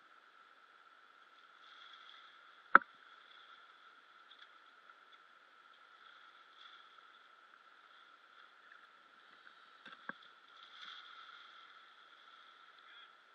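Faint, muffled steady background noise with one sharp knock about three seconds in and two lighter clicks around ten seconds.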